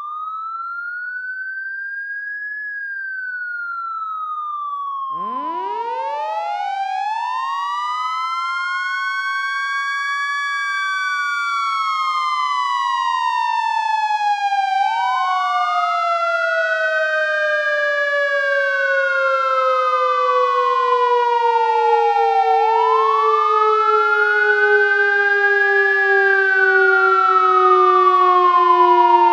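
Fire truck siren wailing, its pitch rising and falling in slow cycles of about eight seconds. About five seconds in, a second, deeper siren tone winds up over several seconds and then slowly sinks in pitch under the wail. The whole sound grows gradually louder.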